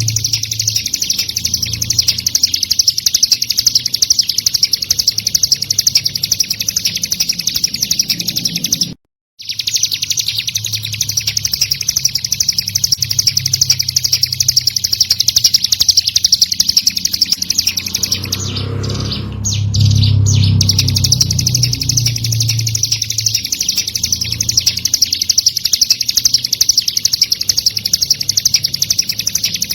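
Ciblek gunung (mountain prinia) singing: a high-pitched, fast, unbroken string of rapid chirps. It cuts out for a moment about nine seconds in, then carries on.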